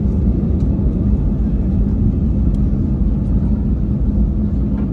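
Steady low rumble inside the cabin of an Airbus A320neo, its Pratt & Whitney PW1100G geared turbofans running, with a constant hum under the rumble.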